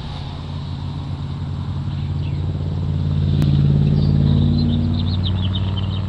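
Motor vehicle engine running with a low, steady hum that swells to its loudest about halfway through and then eases off. Small birds chirp in the second half.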